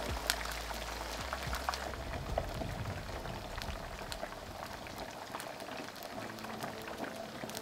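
Hake pieces frying in hot oil in a pan: a steady sizzle with many small pops and crackles scattered throughout.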